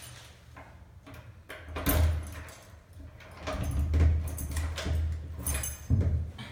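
An apartment door being opened, with a series of clicks, knocks and low thuds.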